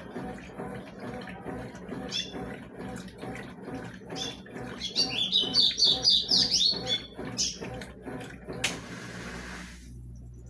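Consul CWS 12 washing machine agitating bedsheets in rinse water, a rhythmic sloshing about three times a second. A bird chirps loudly in the middle. Near the end the agitation stops, leaving a steady low hum.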